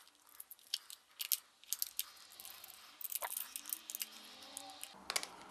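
Scattered light clicks and crinkles of packaging being handled.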